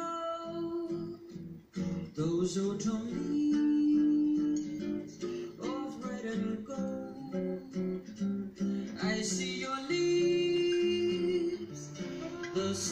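A woman singing long held notes with acoustic guitar accompaniment.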